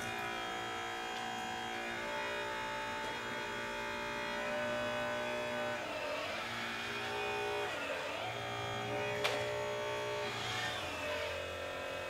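Hydraulic pump of a radio-controlled Liebherr excavator model whining steadily while the machine digs and lifts its bucket, its pitch dipping and recovering three times as the pump takes load. A sharp click a little after the middle.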